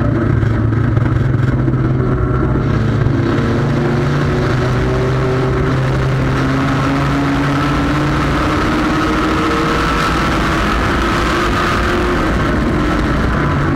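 Front-wheel-drive sport compact race car's engine running hard at racing speed, picked up by a camera on its hood. The pitch holds fairly steady and rises gently midway, over a constant rush of wind and road noise.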